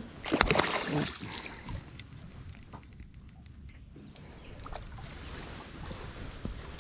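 A mulloway being netted beside a small boat: a few knocks and splashes in the first second, then quieter water sloshing with a soft noise that builds toward the end.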